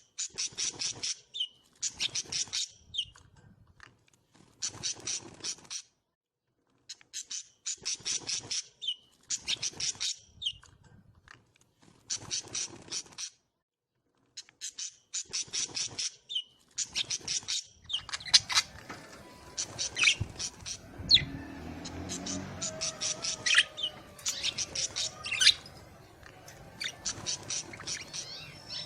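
Small cage birds chirping: a run of repeated short, rapid rattling trills about a second long, with brief pauses between them. About two-thirds of the way in, more birds join in a busier mix of chirps and whistles.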